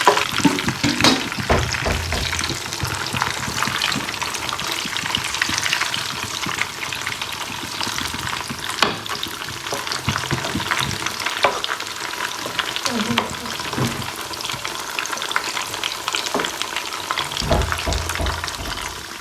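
Boiled beans mixed with a fried pepper, onion and tomato base sizzling as they fry, while being stirred, with frequent small scraping clicks over a steady hiss.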